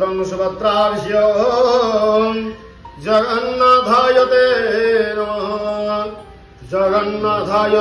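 Hindu mantras chanted in a sung, melodic style over a steady drone, in three phrases with short breaks between them.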